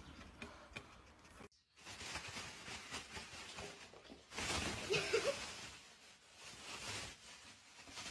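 Thin plastic shopping bag rustling and crinkling as a cat jumps at it and climbs inside, loudest about halfway through.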